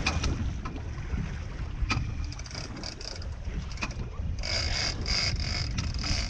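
Boat running with a steady low rumble and wind buffeting the microphone, with a few sharp clicks. From about two-thirds of the way in, a high-pitched squeal pulses several times.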